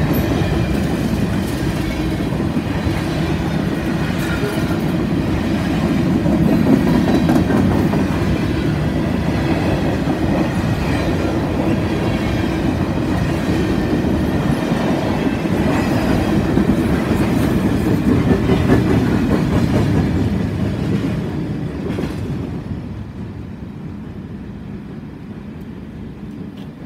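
CP grain train of covered hopper cars rolling past close by: a steady rumble and clatter of steel wheels on the rail, with a faint high ringing over it. After about twenty seconds it fades quickly as the end of the train draws away.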